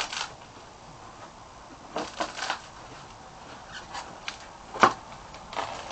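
A large cardboard box being handled and shifted against a concrete floor: short scrapes and rubs of cardboard, with one sharper knock, the loudest sound, about five seconds in.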